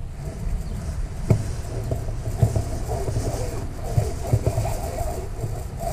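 Wind rumbling on the microphone aboard a moored catamaran, with a few short knocks through it.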